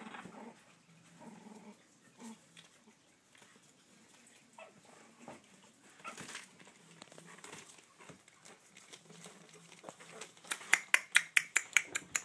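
Puppies whimpering and growling softly as they tussle and scrabble on newspaper. About ten seconds in, a fast run of loud, sharp clicks starts, about five a second.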